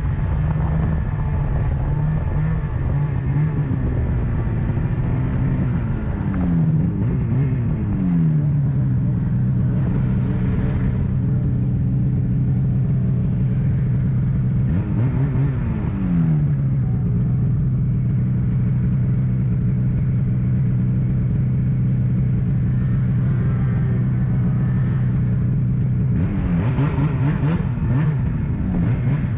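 Snowmobile engine running at a steady speed, its pitch sliding down and back up a few times as the throttle changes.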